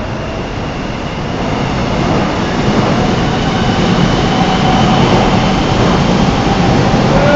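A train passing close by: a steady rail rumble that builds in loudness from about two seconds in, with faint thin squealing tones over it.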